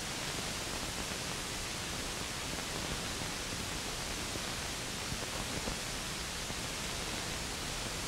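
Steady hiss of an old film soundtrack, with no other sound.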